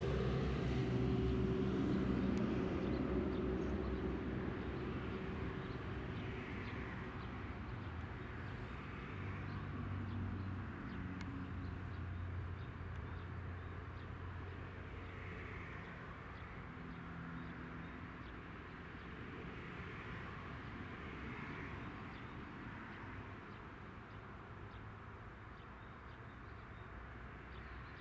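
Outdoor ambience: a low mechanical hum, loudest at the start and fading away over the first half, with birds chirping now and then.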